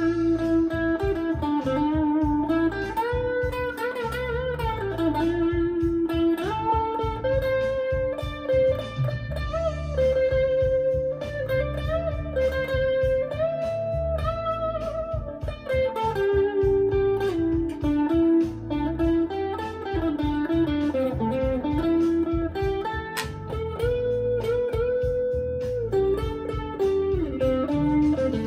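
Electric guitar playing a lead line over a backing track, with held notes that are bent and given vibrato, over a steady drum-and-bass rhythm.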